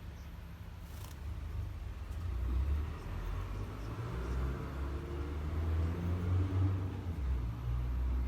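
A low rumble that grows louder about two seconds in and stays strong, with a fainter wavering noise above it.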